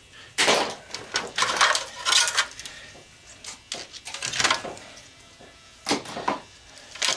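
Metal parts and tools clattering and rattling on a workbench as a washing machine is taken apart, in several short bursts of clicks and clinks.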